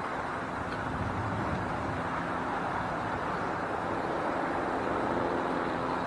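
Steady outdoor ambient noise with a faint low hum, at an even level and with no distinct ball strikes.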